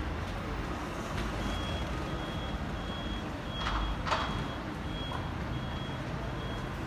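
A vehicle's reversing alarm beeping at a steady pace, a little more than one beep a second, starting about a second and a half in, over a low engine and street rumble. Two short hisses sound midway.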